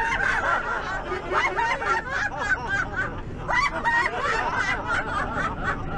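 A busload of people laughing together in a group laughter-yoga session, many voices overlapping in bursts of giggles and chuckles.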